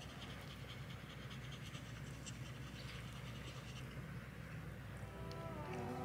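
Faint scratchy rustling with a small Pomeranian-type dog panting.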